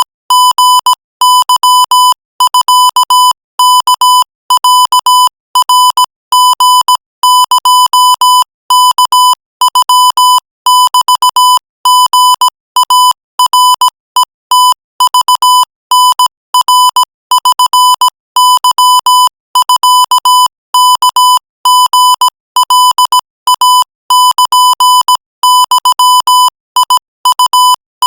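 Morse code sent at 20 words per minute: one steady-pitched electronic beep keyed on and off in short and long pulses, dots and dashes, with brief gaps between letters and words.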